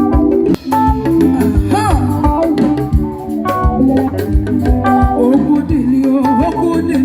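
Music led by an electronic organ playing held chords over a steady, regular drum beat, with a wavering lead line in places.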